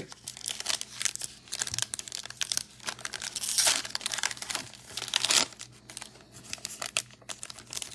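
Foil trading-card pack wrapper crinkling and tearing as it is pulled open by hand: an irregular crackle with louder rips about three and a half and five seconds in.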